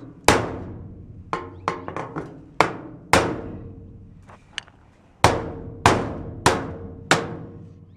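Hammer blows on the sheet-steel wall of a portable office container, hammering out bent, dented spots. About ten hard, irregular strikes, each ringing and fading away, ending in four evenly spaced blows a little over half a second apart.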